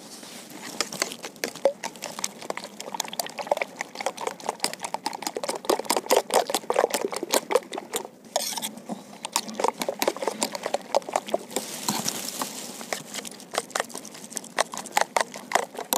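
A metal spoon stirring beaten quail eggs and chopped onion in a steel bowl: rapid clinks and scrapes of the spoon against the bowl with a wet sloshing of the egg mixture.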